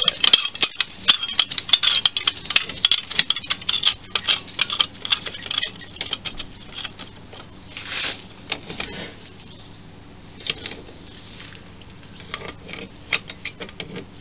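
Hand tools and a Whitworth socket working a bolt loose on an old cast-iron lathe. A run of rapid metallic clicks lasts about five seconds, then gives way to scattered single clicks and clinks.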